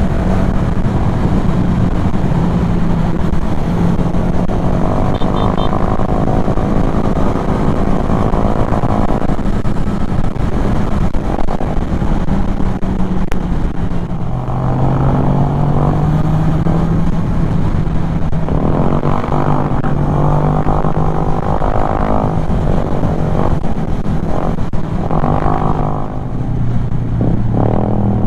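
Kymco Xciting 400 maxi-scooter engine running under way, with wind on the microphone. The engine pitch drops about halfway through, climbs again, and drops once more near the end as the throttle changes.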